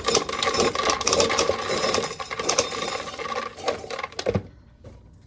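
Old corn sheller running, a dense clattering rattle of its mechanism and the corn going through it, which stops abruptly a little over four seconds in.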